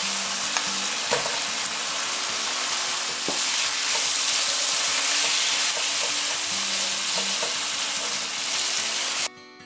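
Thin-sliced beef brisket, onions, garlic and spaghetti sizzling hard in a hot nonstick frying pan while a silicone spatula stirs and tosses them, with a few scrapes and knocks against the pan. The sizzle cuts off suddenly near the end, leaving soft music.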